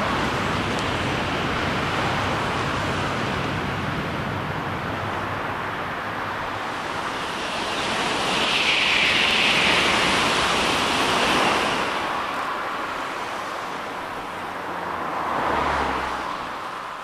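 Shinkansen bullet trains passing at high speed: a steady rush of air and wheel noise. It grows to its loudest about halfway through, swells once more near the end, then fades away.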